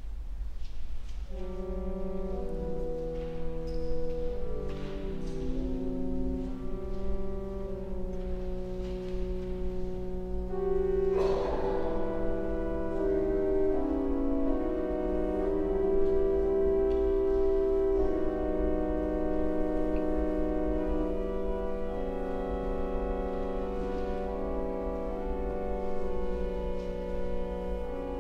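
Pipe organ playing slow, sustained chords that come in about a second in and change every few seconds, over a steady low hum.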